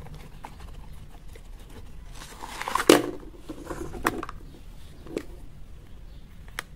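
Handling of a plastic toy phone and its cardboard box: a rustling scrape as the toy is slid out of the box, ending in a knock about three seconds in, then a few sharp clicks and taps of the plastic toy being set down and picked up.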